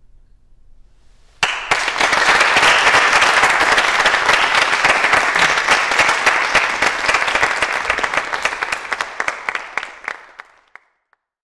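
Audience applauding: the clapping breaks out suddenly about a second and a half in, holds steady, and dies away near the end.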